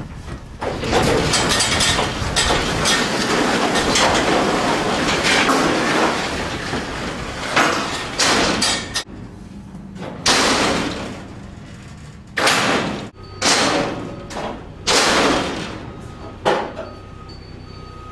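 Metal clattering of a livestock trailer's folding deck and its latch mechanism being worked: a long stretch of steady rattling noise, then about six separate sharp clanks, each ringing briefly.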